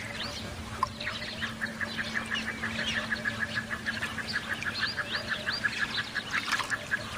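A flock of ducks, garganey among them, calling: many overlapping short squeaky calls. About a second in, a fast, even series of short notes, roughly six a second, starts up and runs almost to the end.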